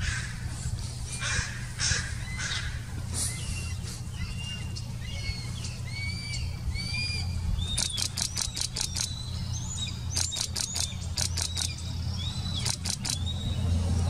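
Bald eagles calling at the nest: a few short, high whistled notes, then from about eight seconds in several rapid chattering runs of high piping notes. A steady low hum runs underneath.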